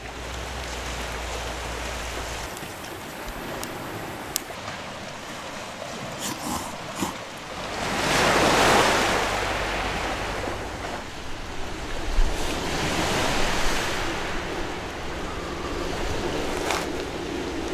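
Sea waves breaking on the shore, a steady wash with one wave surging loudest about eight seconds in and a smaller one a few seconds later.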